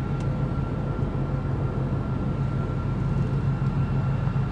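Steady in-flight drone of an airliner cabin: engine and airflow noise with a strong low hum and a faint steady whine above it.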